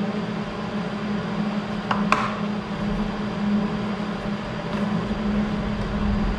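Steady mechanical hum with a hiss, like a fan or machine running in a workshop. Two small clicks about two seconds in come from handling the welding helmet while its lens is being changed.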